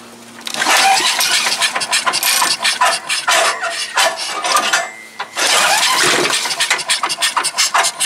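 Tecumseh 5.5 HP OHV small engine being cranked with its recoil pull-starter, pulled over and over without firing, with a brief pause about five seconds in. It doesn't catch because the ignition switch is still off.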